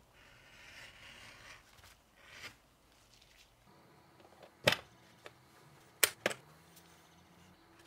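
Handling noise: soft rustling, then a few sharp clicks or taps, two of them close together, with the loudest about two-thirds of the way through.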